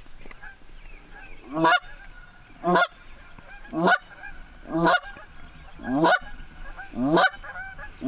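Canada goose calling blown by a hunter: loud honks about once a second, each rising in pitch and cut off short, an aggressive 'fight' sequence to pull geese in. Fainter honks from real geese sound behind it.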